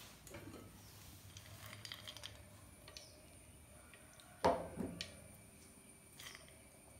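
Soft rustles and small light clicks of fried onions, cashews and raisins being sprinkled by hand onto cooked rice, with one sharper knock about four and a half seconds in.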